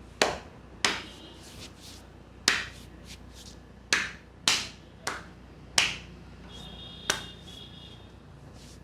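Barber's hands striking the head in a massage, about eight sharp slaps at irregular gaps of half a second to a second and a half.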